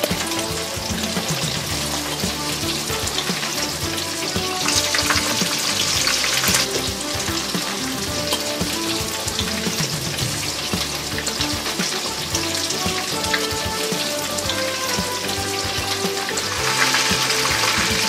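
Panko-breaded cod fillets sizzling and crackling in hot vegetable oil in a frying pan, the sizzle swelling louder about five seconds in and again near the end.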